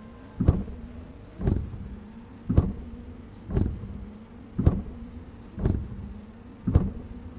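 Suspense soundtrack: a deep, heartbeat-like thump about once a second over a steady low drone.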